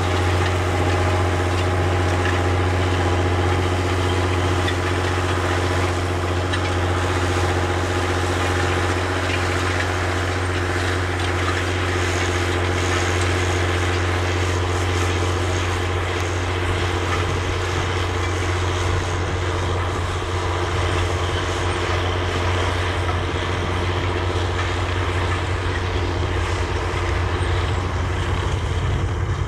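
John Deere 7020's six-cylinder turbocharged diesel engine running steadily under load, pulling a disk.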